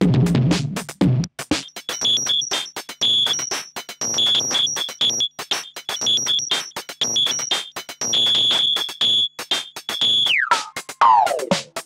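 Drum-machine loop played through a Moogerfooger ring modulator, with a high metallic tone pulsing along with the drum hits. About ten seconds in, the frequency knob is turned and the tone falls steeply in pitch.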